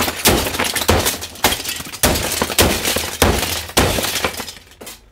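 A hammer smashing a cheap plastic knock-off Thomas and Friends racing-track playset: about seven heavy blows, a little under two a second, each with plastic cracking and shattering and pieces clattering across the bench. The blows die away near the end.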